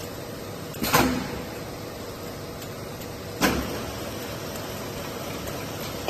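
Palletizing gripper head on a metal paint-pail line clamping and lifting pails: two sharp clunks, one about a second in and a louder-onset one about three and a half seconds in, over a steady machine hum.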